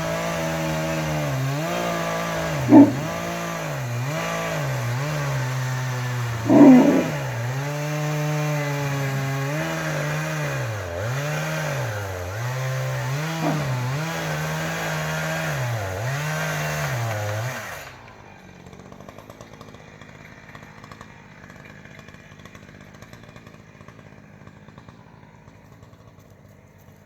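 Chainsaw cutting into a tree, its engine pitch dipping and recovering again and again under load, with two short, sharp loud sounds along the way. It stops about eighteen seconds in, leaving only faint background noise.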